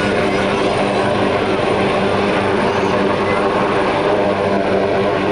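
AgustaWestland AW139 twin-turbine helicopter hovering low, its rotor and engines running with a steady, even drone.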